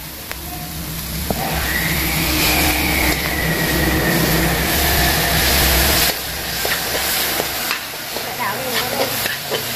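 Metal tongs turning chicken feet in an aluminium wok, with light sizzling and small clicks and scrapes of the tongs on the pan. For the first part a steady low engine-like hum sits over it, then stops abruptly about six seconds in.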